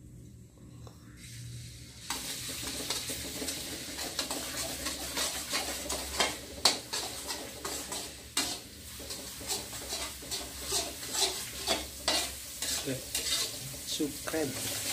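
Ground garlic and turmeric spice paste sizzling in hot oil in a wok, starting suddenly about two seconds in. A metal spatula scrapes and knocks against the pan in irregular strokes as the paste is stir-fried.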